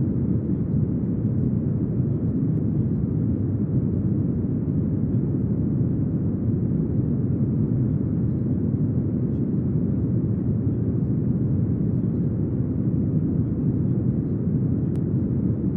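Brown noise: a steady, deep hiss, heaviest in the bass and with almost nothing in the treble, unchanging throughout.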